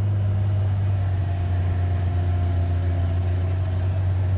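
An engine idling steadily with a low, even hum and no revving.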